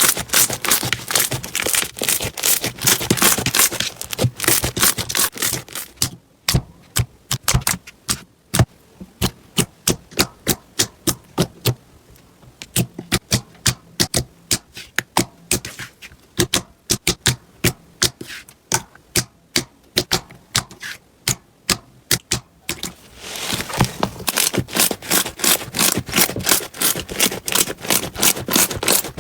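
Slime being squeezed and poked by hands, popping and crackling as air pockets burst. The pops come in dense runs at first, thin out to separate sharp clicks a few times a second from about six seconds in, and grow dense again about 23 seconds in.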